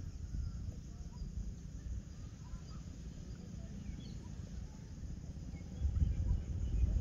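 Evening outdoor ambience: a steady high buzz of insects with scattered short bird chirps, over a low rumble of wind on the microphone that swells briefly about six seconds in.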